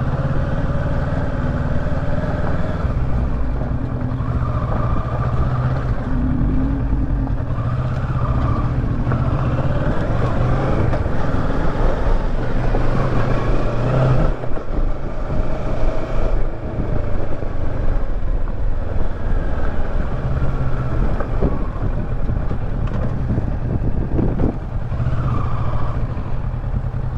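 Kawasaki Versys 650's parallel-twin engine running at low speed, its note rising and falling as the throttle opens and closes, with a couple of brief dips partway through.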